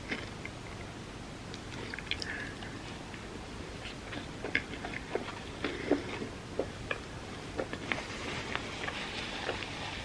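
Close-miked chewing and wet mouth clicks of someone eating a soft, sticky tortilla dessert layered with chocolate and peanut butter, in irregular smacks that come thickest in the middle. A soft rustling hiss joins near the end.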